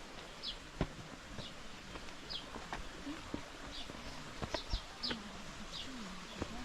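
A bird repeating short, high chirps that fall in pitch, about one a second, over outdoor background. A few sharp clicks stand out, the loudest about a second in and again near the five-second mark.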